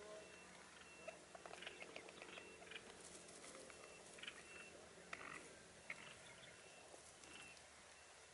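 Near silence with scattered faint soft ticks and rustles from bamboo partridges pecking and stepping through grass.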